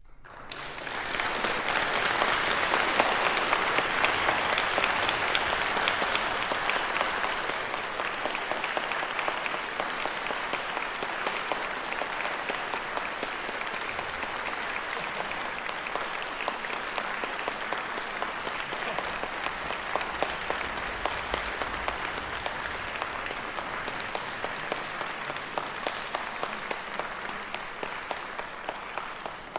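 Audience applauding, swelling quickly at the start and loudest in the first few seconds, then continuing steadily a little lower and tailing off at the end.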